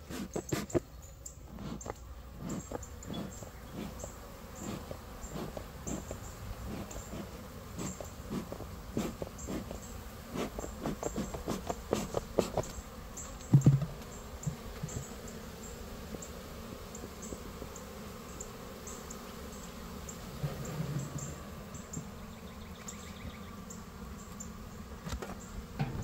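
Agitated honeybees buzzing around an open Layens hive, with scattered wooden knocks and clicks as a hive board is handled. One louder thump comes about halfway through.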